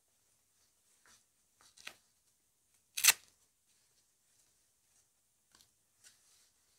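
A knee brace's hook-and-loop strap is pulled and fastened with one short, loud rasp about three seconds in. Faint rustles of fabric come before and after it.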